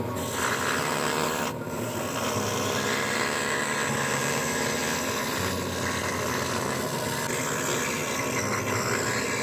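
Scroll saw running and cutting thin plywood: a steady sawing noise over the motor's low hum, with a brief break about a second and a half in.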